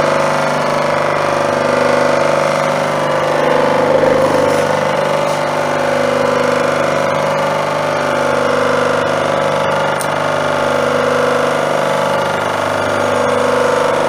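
Laguna SuperMax 19-38 drum sander running unloaded, with no wood fed through: a steady, even motor and drum hum, which he calls quiet.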